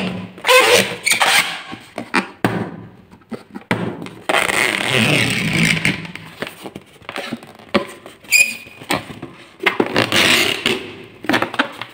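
Hands rubbing, squeezing and bending an inflated long latex balloon: irregular rubbery squeaks and scrapes, with one short high squeak about eight seconds in.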